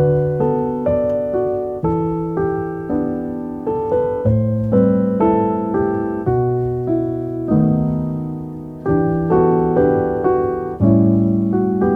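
Background piano music: a slow melody of single notes and chords, each struck and fading, several notes a second.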